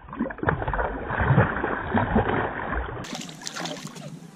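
Hooked bass thrashing and splashing at the water's surface beside a boat, with irregular splashes. About three seconds in, the sound cuts abruptly to quieter open-water noise.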